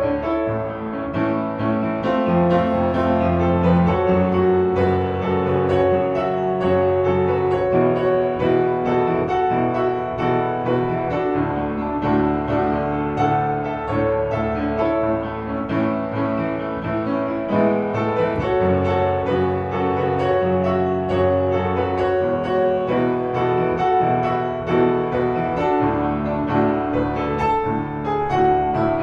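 Piano music.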